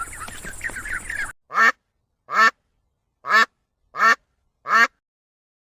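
Ducks quacking: a busy stretch of overlapping quacks over background noise, then after an abrupt cut, five single loud quacks spaced under a second apart with silence between them.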